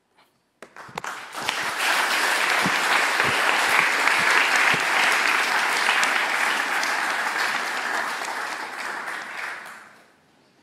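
Audience applauding. It builds up quickly in the first second or two, holds steady, then dies away near the end.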